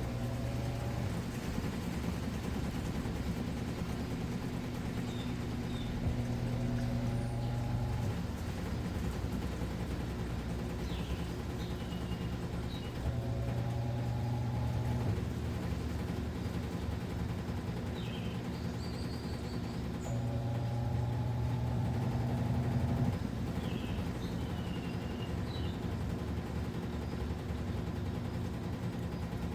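Midea Wave-Agitator top-load washing machine running its wash cycle: a steady motor hum, with a louder whine of about two seconds every seven seconds or so as the motor drives the agitator.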